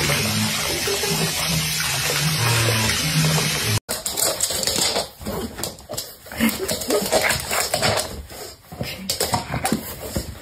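Water spraying steadily into a bathtub, which cuts off suddenly about four seconds in. After that come irregular short knocks and pitched sounds at a lower level.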